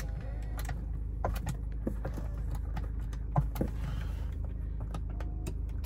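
Power driver's seat in a BMW 5 Series cabin being adjusted: short whirs of the electric seat motors and several clicks from the seat switches, over a steady low hum.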